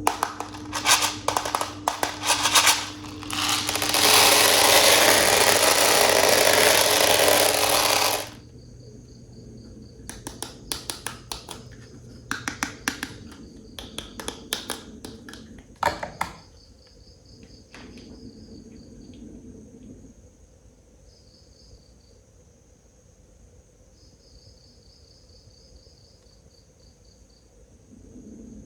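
Sharp clicks and taps of hard plastic toys being handled, with a loud rustling noise for about four seconds that cuts off suddenly, likely packaging. Faint trains of cricket-like chirps come in and out later.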